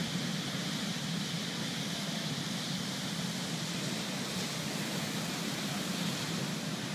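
Large ocean waves breaking and whitewater washing up a sand beach, heard as a steady, even rush of surf with no single crash standing out.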